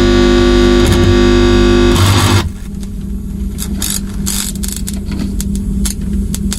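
Live electronics: a loud, dense distorted drone of many held tones cuts off suddenly about two and a half seconds in. What remains is a quieter layer of steady low hum and noise, broken by scattered clicks and crackles.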